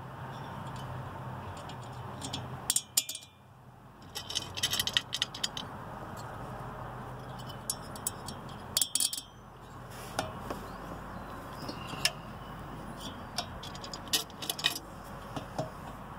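Small steel cylinder head bolts clinking and jangling against the metal of a chainsaw cylinder as they are set into their holes and the cylinder is fitted, in several short bursts of clicks over a steady low hum.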